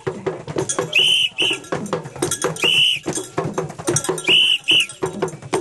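A whistle blown in short shrill blasts: a pair about a second in, one longer blast near the middle, and another pair later. It sounds over a fast, dense percussive beat and crowd voices.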